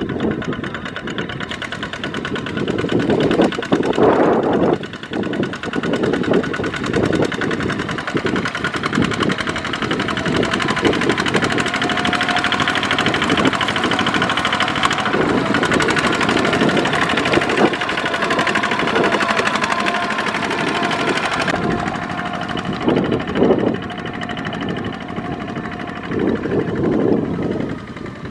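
Two-wheel walking tractor's single-cylinder diesel engine chugging steadily under load as it drags a loaded trailer through deep mud, with a few louder surges.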